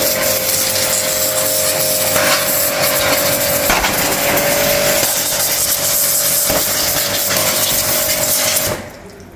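AGARO Supreme 1800 W electric pressure washer running: a steady motor hum under the loud hiss of the high-pressure water jet spraying a motorbike. Near the end the motor and spray cut off together, as the motor stops whenever the trigger is released.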